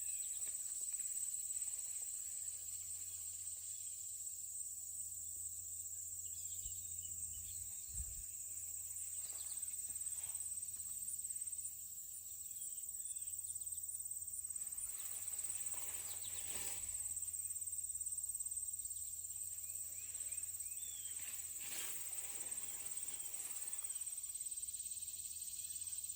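Insect chorus in late-summer vegetation, a steady high-pitched trill that does not let up, with a few faint rustles now and then.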